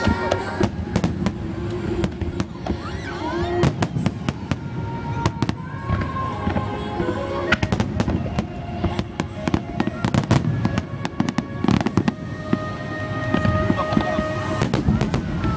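Aerial fireworks bursting in quick succession, a dense run of sharp bangs and crackles over a low rumble, with music playing along from loudspeakers.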